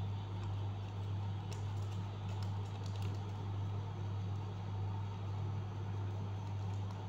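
Origami paper being handled and creased by hand: faint, scattered light crinkles and ticks over a steady low hum.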